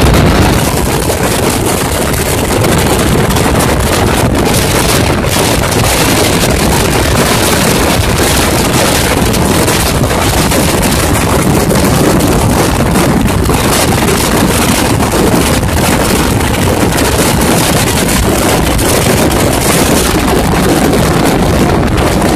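Steady loud rush of wind and wheel-on-rail noise at the open doorway of a fast-running non-AC double-decker express train, with wind buffeting the microphone.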